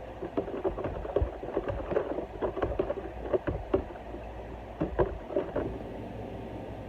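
Irregular clattering of kitchen work: a string of short knocks and clicks of a utensil against a bowl or pan, easing off about six seconds in over a steady low hum.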